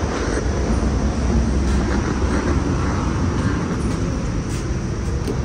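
Steady low rumbling background noise, heaviest in the bass, with no distinct events.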